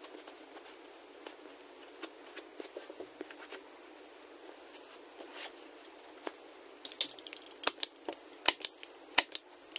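Cotton canvas cloth rustling softly as it is folded and tucked over the corner of a wooden stretcher frame. About seven seconds in, a run of sharp, loud clicks begins, several to the second.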